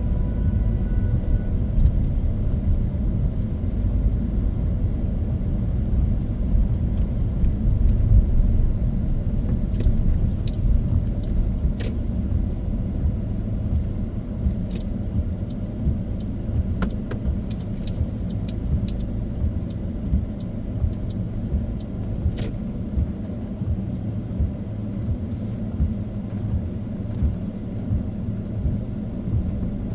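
Car cabin noise while driving slowly: a steady low rumble of engine and road, with a few scattered sharp clicks.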